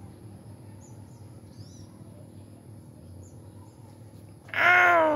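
A cat gives one loud, drawn-out meow about four and a half seconds in, its pitch dropping at the end. Faint bird chirps come before it.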